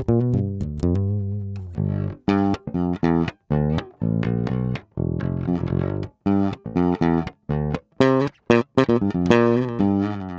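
Bass lines plucked note by note and recorded direct through a USB audio interface: an acoustic-electric bass ukulele first, then a red electric bass guitar about halfway through.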